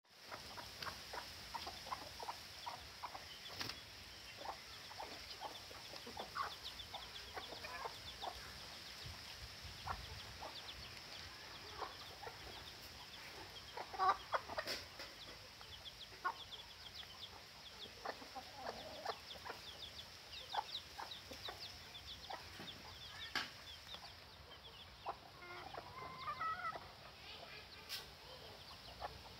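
A hen clucking and chicks peeping, many short calls one after another, with a louder burst of calls about halfway through.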